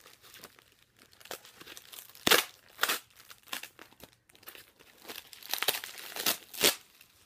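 White packing wrap crinkling and tearing as hands pull it off a resin doll head, in irregular crackles, loudest about two seconds in and again near the end.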